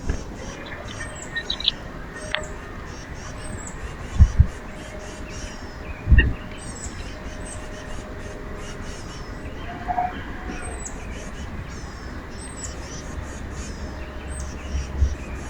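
Wild birds chirping at a backyard feeder, with short high calls repeating over a steady outdoor hiss. Two dull low thumps come about four seconds in, and another about six seconds in.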